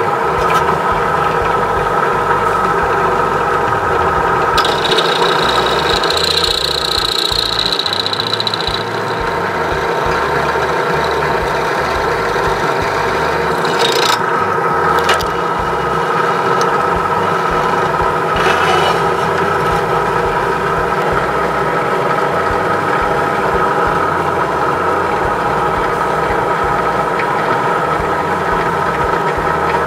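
Drill press motor running steadily while its bit drills out the rivet in a die-cast toy car's base. A high whine joins in for a few seconds about five seconds in, and short scrapes come around 14 and 18 seconds in as the bit works into the metal.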